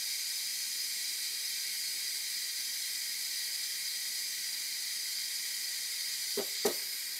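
Steady hiss of steam venting from an electric pressure cooker's release valve during a quick pressure release, the pot still depressurizing before its float pin drops. Two light knocks sound close together near the end.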